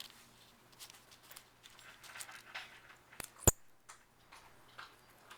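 Small clicks and scrapes of button-cell batteries being slid into a Streamlight Nano keychain flashlight as it is handled, with one sharp click about three and a half seconds in.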